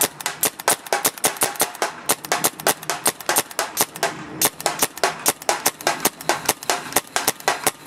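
Automag 68 Classic paintball marker firing in rapid succession, sharp pops about six a second, with a brief pause about halfway through.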